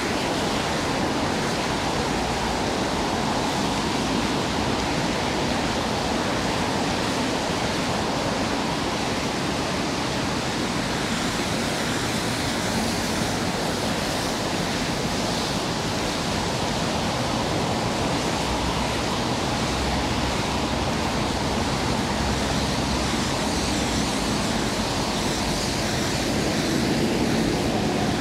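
Steady rushing hiss of falling rain, unbroken and even throughout.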